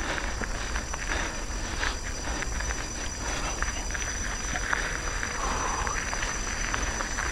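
Nukeproof Scout hardtail mountain bike ridden over a dirt trail: tyre noise with frequent short clicks and rattles from the bike, over a low wind rumble on the microphone.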